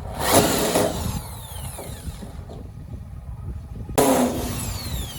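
Handheld electric power tool run in two short bursts about four seconds apart; each time it winds down with a falling whine after release.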